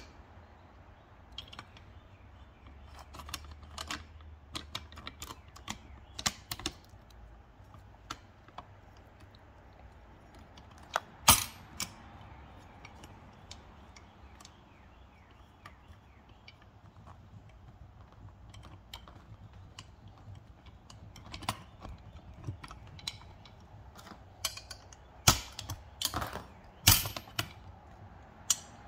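Steel parts of a Jeep CJ7 emergency-brake assembly clicking and clacking as they are handled and fitted together by hand. Scattered sharp clicks, with a few louder knocks: one about eleven seconds in and two more close together near the end.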